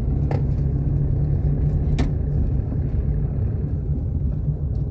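Moving car heard from inside the cabin: a steady low rumble of engine and road noise, with two short clicks about a third of a second and two seconds in.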